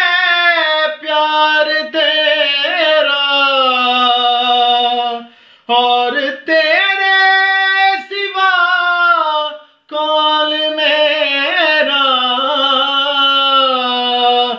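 A man singing an Urdu devotional prayer song unaccompanied, drawing out long, wavering notes without clear words, with short breaths about five and a half and ten seconds in.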